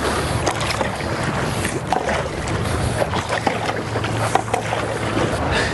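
Water splashing and rushing around a stand-up paddleboard under way as a double-bladed paddle strokes, with wind buffeting the microphone.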